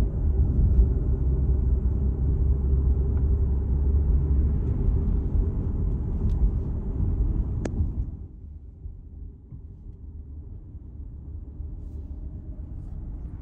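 Road and engine noise inside a moving car's cabin: a steady low rumble. About eight seconds in there is a sharp click, and after it the rumble is much quieter.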